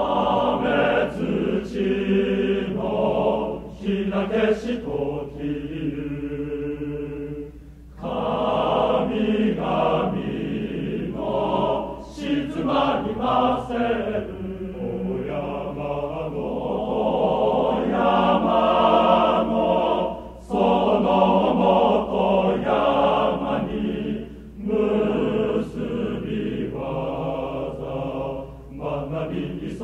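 Men's chorus singing a university song in sustained sung phrases, with short breaks between phrases about eight and twenty seconds in. A steady low hum runs underneath the voices.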